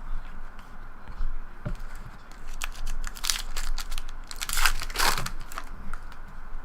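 Crinkling and tearing of a trading-card pack's foil wrapper, in irregular scratchy bursts that grow loudest about three to five seconds in.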